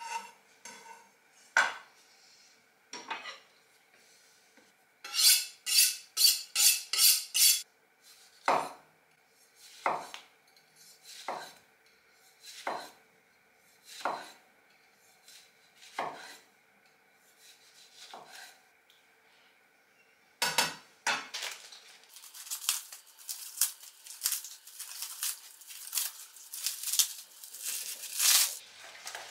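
Chef's knife cutting a tomato on an end-grain wooden cutting board: a quick run of strokes, then single knocks of the blade reaching the board about every second and a half. Near the end comes a dense, crisp rustling and tearing of lettuce leaves being pulled apart.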